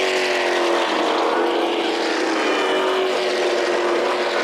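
NASCAR stock car engines running at speed on the track, a loud steady drone from several cars at once, their pitch sliding gently down and up as they go by.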